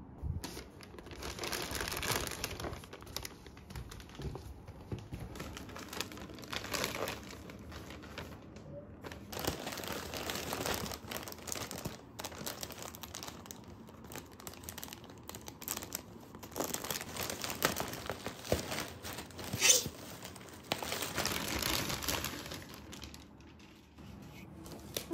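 Plastic packaging crinkling and rustling in irregular bursts as a parcel is unwrapped by hand, with some tearing; the loudest is a sharp rustle about three-quarters of the way through.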